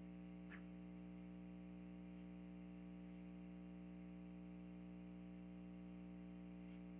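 Near silence: a steady low hum from the recording's background, with one faint click about half a second in.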